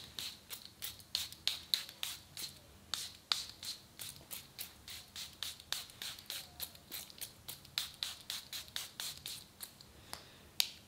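Narciso Rodriguez perfume bottle's pump atomizer sprayed over and over in short hissing puffs, about three or four a second.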